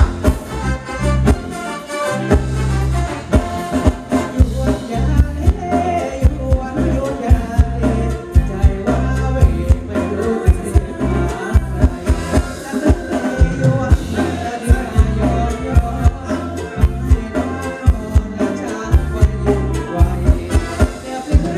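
Live Thai band playing ramwong dance music through a PA system: electric guitars, bass, keyboard and drums keeping a steady beat, with a singer's voice over the top.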